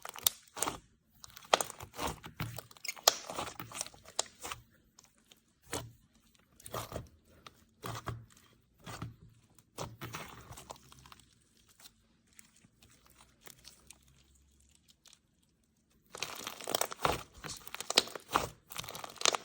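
Glitter slime being squished and stretched by hand, giving irregular crackling, popping clicks. They go sparse and faint for a few seconds past the middle, then come thicker and louder near the end.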